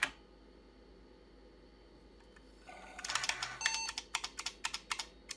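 An IBM 5150 PC restarting: a single keypress on its keyboard, then after a quiet stretch a hiss comes up and the PC speaker gives its short, high power-on self-test beep, with a fast run of sharp clicks around it.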